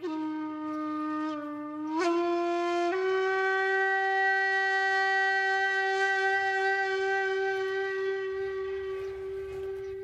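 Background music: a single wind instrument plays a short phrase, stepping up in pitch twice in the first three seconds, then holds one long steady note.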